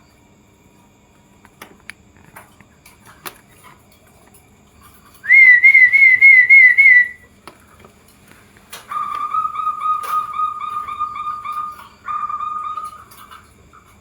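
Zebra doves (perkutut) cooing. The first is a loud, wavering trilled phrase of about two seconds, about five seconds in. A lower, longer trilled phrase follows near the end, with a brief repeat.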